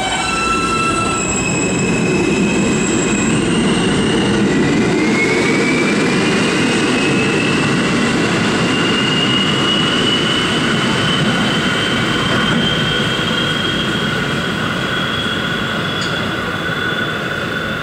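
R160A-2 New York City Subway train pulling out of a station. Its AC traction motors whine in a few stepped tones at first, then in one smooth tone that climbs steadily as the train gathers speed, over a steady rumble of wheels on rail.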